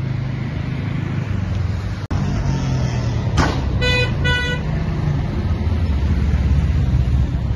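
Steady road-traffic rumble, with a vehicle horn giving two short beeps about four seconds in, just after a brief sharp noise.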